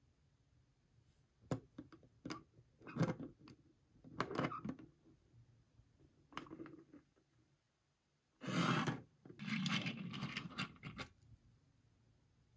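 Hands handling and opening toy packaging: a series of sharp clicks and short scrapes, then two louder stretches of rustling about eight and a half and ten seconds in.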